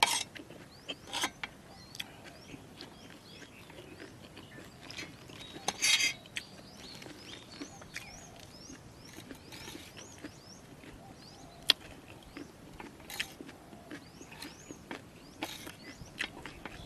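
A person eating crunchy jellyfish salad: bites and chewing crackles, with occasional clicks of a spoon on the dish and a sharp click near the middle. Small birds chirp faintly in the background.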